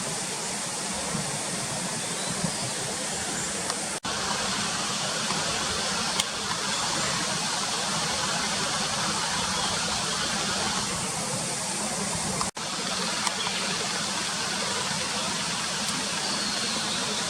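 Steady outdoor rushing noise with no distinct source standing out, broken by two very brief dropouts, about four seconds in and about twelve and a half seconds in.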